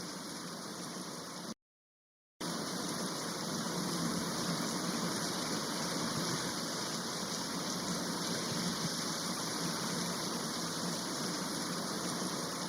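Waterfall rushing steadily. It cuts out to silence for under a second about two seconds in, then comes back a little louder.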